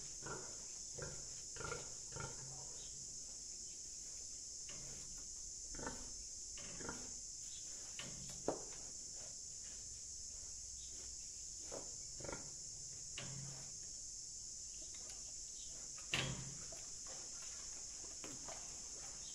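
A domestic pig grunting now and then at its pen gate, mixed with short knocks and clicks from a knife cutting watermelon in a plastic basin, the sharpest about eight and sixteen seconds in. A steady high insect drone runs underneath.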